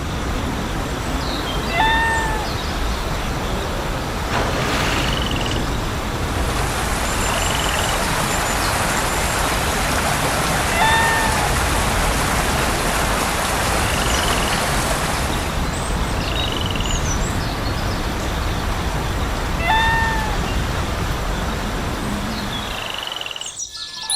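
Steady vehicle-like running noise. A short pitched call that rises and falls comes three times, about every nine seconds, with fainter high chirps between.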